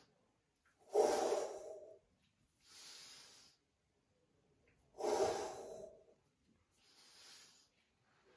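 A man breathing hard through overhead presses with resistance bands: two loud breaths out about four seconds apart, each followed by a quieter breath in.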